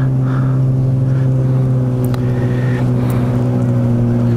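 The motor of a small wooden river boat running steadily at cruising speed, holding one even pitch, with water rushing along the hull.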